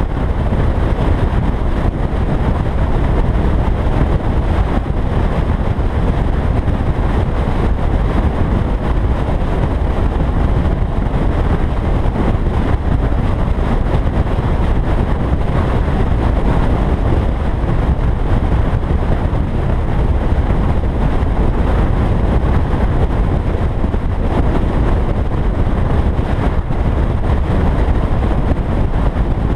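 Steady rumble of a car driving at road speed, with wind, tyre and engine noise blended together and the deepest rumble the loudest, picked up by a camera mounted on the car.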